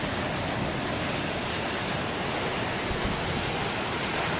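Big waves breaking and washing up a beach in a steady surf roar, with wind buffeting the microphone.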